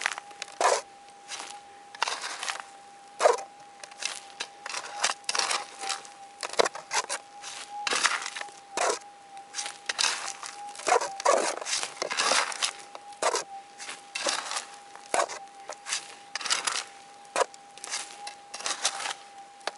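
Hand digging in dry, gravelly dirt: irregular scrapes and rasps of a pick and a plastic scoop cutting and tossing soil. Under them runs the steady single tone of the Minelab gold detector.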